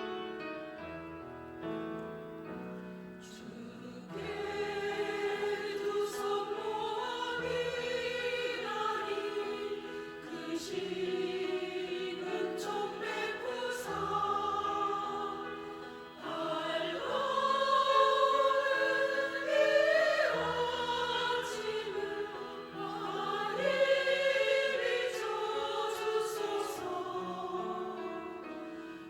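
Church choir singing a hymn in parts, entering about four seconds in after a short piano passage; the singing swells louder past the middle.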